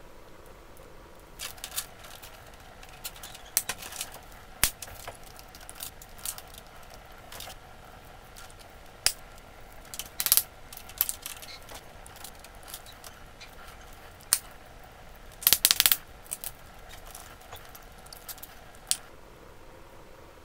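Electrical wires and clear plastic wire connectors being handled in a plastic junction box: scattered small clicks and rustles, with a short cluster of sharp clicks about three-quarters of the way through.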